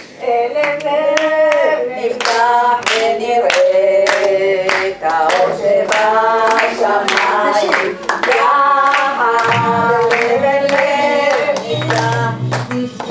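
A woman singing a melody with long held notes into a microphone, with hands clapping along in a steady beat about twice a second.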